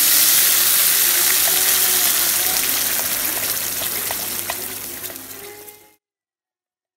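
Wet ground masala paste hitting hot oil in a non-stick kadai: a loud sizzle with scattered crackles and pops that slowly fades, then stops abruptly about six seconds in.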